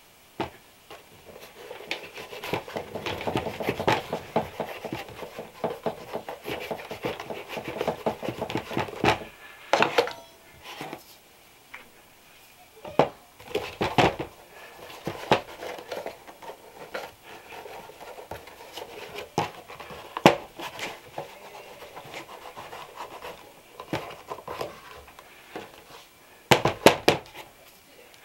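Bristle shoe brush scrubbing over leather in quick back-and-forth strokes, then a few separate knocks and short bursts of rubbing as the brush and shoe are handled.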